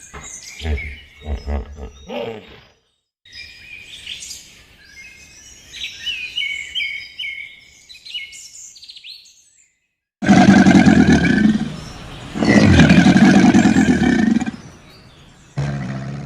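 A run of separate animal sound clips: a quick series of short calls, then small birds chirping and twittering for about six seconds, then two long, loud calls from a larger animal.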